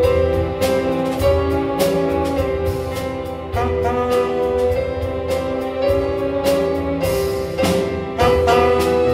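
Tenor saxophone playing a slow solo melody over an orchestral accompaniment with a steady, light beat.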